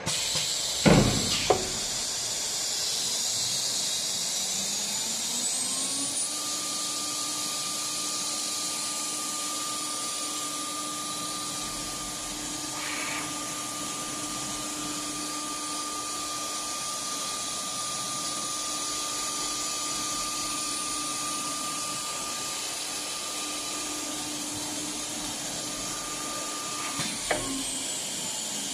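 CNC router spindle whining up in pitch over a few seconds as it spins up, running at a steady speed, then winding down near the end. A steady hiss runs under it throughout, with a few sharp clicks about a second in and again just before the spindle stops.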